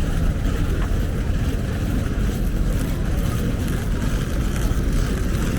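Steady low rumble of outdoor street ambience, with no single sound standing out.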